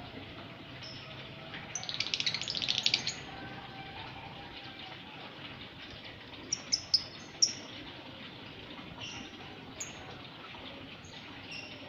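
Lovebirds chirping: a fast, dense chattering burst about two seconds in, then four sharp, high chirps in quick succession a few seconds later, with scattered softer chirps in between.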